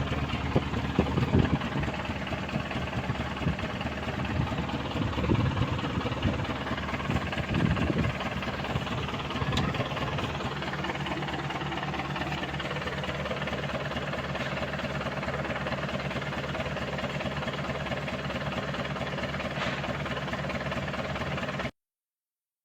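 Mitsubishi Canter's 4D32 four-cylinder diesel idling steadily after an injector rebuild meant to cure its misfiring and white smoke. There are a few brief louder moments in the first ten seconds. The sound cuts off abruptly near the end.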